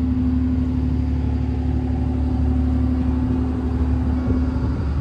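A ferry's engines droning steadily underway, a low hum over a deep rumble; the hum drops out near the end.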